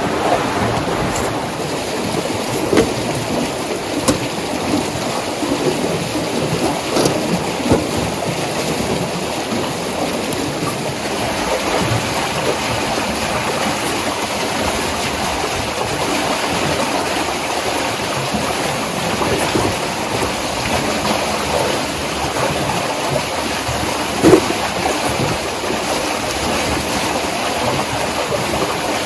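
Steady rushing of water flowing in an open snow-flushing channel, mixed with the scrape of a snow dump being pushed through snow. A few light knocks, and a sharp, louder knock about 24 seconds in.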